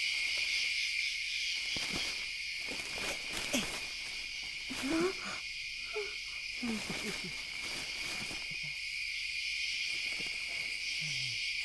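Steady night chorus of crickets chirring, with a few short low calls that slide up or down in pitch scattered through it.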